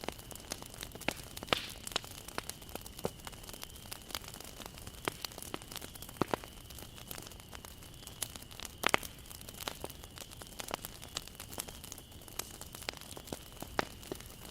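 Wood fire crackling, with irregular sharp pops and snaps as the wood burns; the loudest pop comes about nine seconds in.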